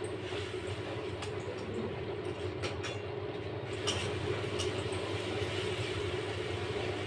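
A steel spatula scraping and stirring a spice paste in a steel kadai, with a few sharp clicks of metal on metal, over a steady low hum.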